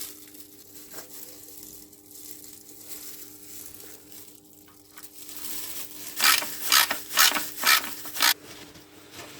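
About six quick rubbing strokes in a row, late in the stretch: wiping spilled engine oil from around the freshly tightened oil drain plug with a paper towel, after a mostly quiet start.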